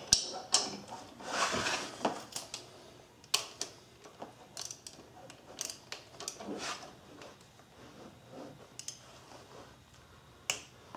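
Scattered, irregular metallic clicks and clinks of a wrench and socket on the crankshaft pulley bolts, with soft rustling of hands and sleeve between them.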